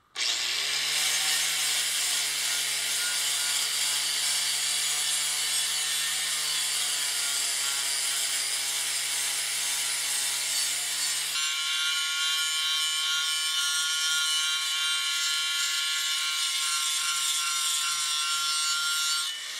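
Corded angle grinder with a flap disc spinning up and grinding rust off a steel axe head: a steady high motor whine with the hiss of the abrasive on the metal. Its tone changes abruptly about eleven seconds in, and it stops just before the end.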